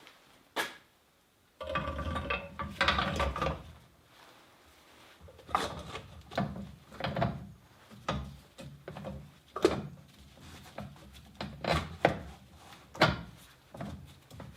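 Irregular knocks, clicks and rubbing of parts and tools being handled. A short pitched buzzing sound comes about two seconds in.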